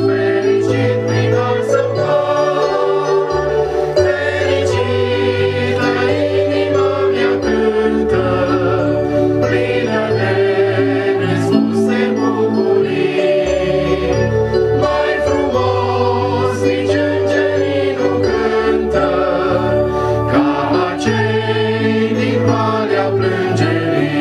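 Congregational hymn singing, led by male and female voices on microphones, over an instrumental accompaniment with a bass line that changes note every couple of seconds.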